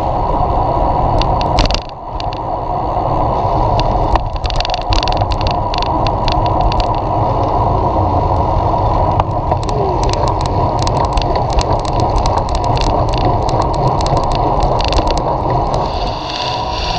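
Steady rushing wind and road noise on a cyclist's action camera while riding, with frequent sharp clicks and rattles over the top. The rush dips briefly about two seconds in and eases near the end.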